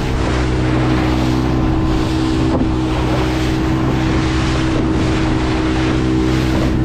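Motorboat engine running at a steady pitch, with wind blowing across the microphone.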